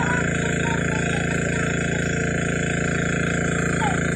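Steady electric buzz from a backpack electrofishing rig, its inverter powering two probe poles held in the pond water to stun fish. A few faint short chirps sit over the buzz.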